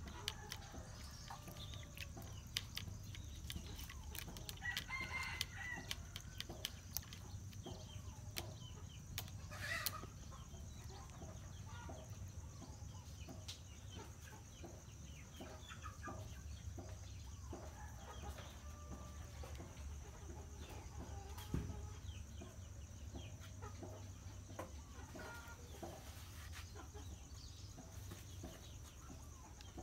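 Outdoor yard sounds: chickens clucking now and then, with short calls around five and ten seconds in, over a steady high drone and low hum. Soft irregular clicks come through as a cat laps and paws at water in a plastic pan.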